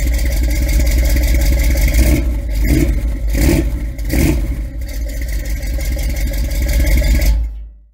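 Car engine running, with a couple of brief louder bursts in the middle, fading out near the end.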